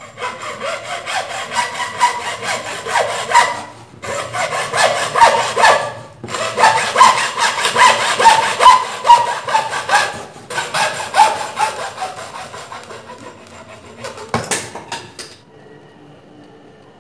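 Hand sawing with a hacksaw: rhythmic back-and-forth strokes, with two short breaks, fading out near the end, followed by a single sharp knock.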